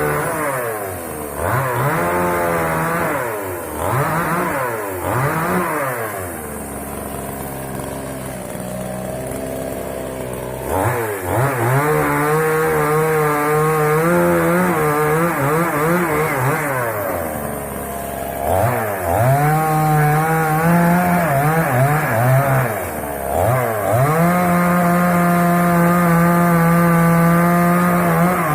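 Moto Yama two-stroke chainsaw revved up and down several times, then running at a lower steady speed. About eleven seconds in it goes to high revs and holds there for long stretches, with brief drops, as it cuts through dry wood.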